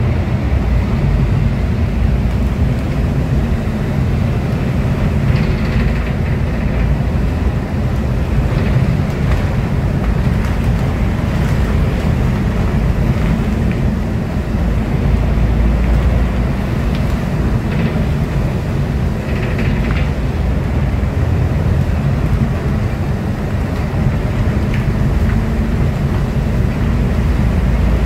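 Volvo D8K 350 hp inline-six diesel and Voith DIWA.6 automatic driveline of an articulated city bus, heard from inside the passenger cabin as a steady low drone while the bus drives along, with road noise mixed in.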